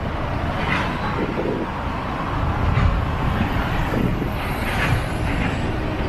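Freight train of autorack cars rolling past, a steady rumble of wheels on rail with a few short sharper sounds, mixed with road traffic driving by in front.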